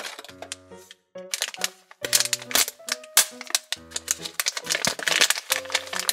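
Shiny foil blind bag crinkling and rustling as it is handled and torn open by hand, with dense irregular crackles from about a second in, over light background music.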